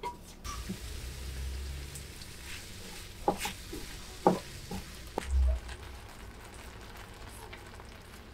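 Onion and shimeji mushrooms sizzling softly in a frying pan on low heat while soy milk is stirred in with chopsticks. A few sharp clicks of the chopsticks against the pan come between about three and five seconds in, followed by a dull bump.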